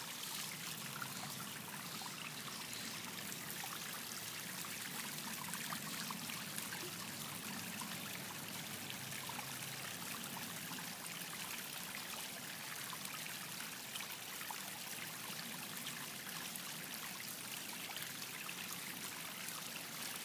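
Water trickling steadily over a stacked-stone garden fountain.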